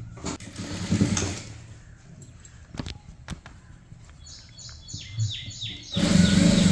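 Fabric being handled with a couple of sharp clicks, then a sewing machine stitching from about four seconds in, in a steady run of strokes about four a second that turns louder and faster near the end.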